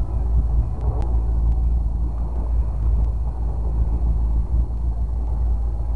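Fishing boat underway at trolling speed: a steady low rumble of the motor mixed with wind buffeting the microphone, and water washing past the hull.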